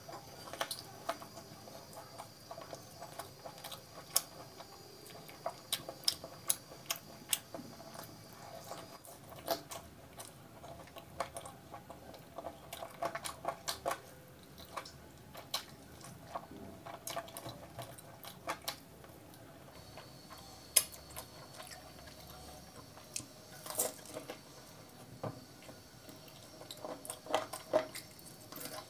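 Close-miked chewing and wet mouth sounds of someone eating chicken curry off the bone with puri, with many irregular sharp smacks and clicks.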